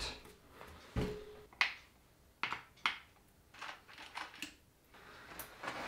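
Scattered light clicks and knocks of a mountain bike being handled and its saddle adjusted, with a low thump about a second in.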